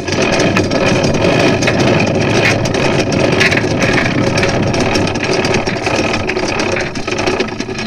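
Anchor chain being hauled up by hand, the metal links rattling and clanking over the bow roller and through a homemade stainless steel chain stopper in a fast run of clicks. It eases off near the end.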